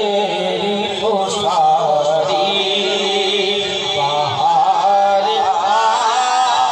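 Naat recitation: a voice chanting in long, wavering sung lines with held, bending notes.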